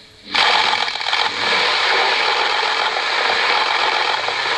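Audience applauding, a dense even clatter of many hands that breaks out sharply a moment in and holds steady, following the formal designation of a new prime minister.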